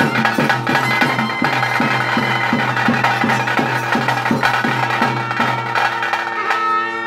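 Live Bhuta Kola ritual music: drums struck in a steady beat about three times a second, with a piping wind instrument playing over them. Near the end the drumming drops away and a long held tone is left.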